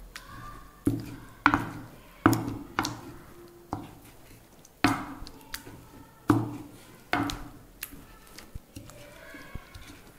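Wooden masher pounding boiled sorrel (gongura) leaves in a clay pot: repeated dull knocks, roughly one a second, growing weaker near the end.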